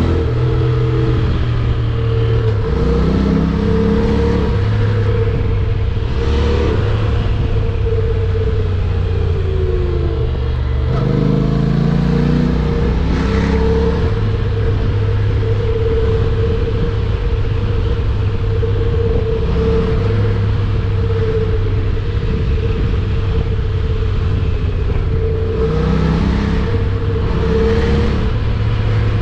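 Honda NC750X motorcycle's parallel-twin engine running on the road, its revs dropping and then climbing again about ten seconds in.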